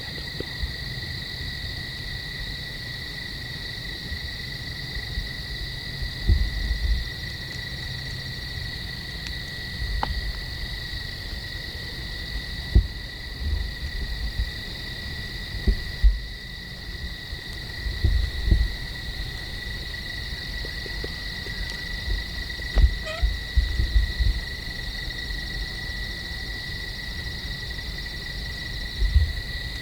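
Steady evening chorus of crickets, a constant high trill, with short low thumps and rumbles every few seconds.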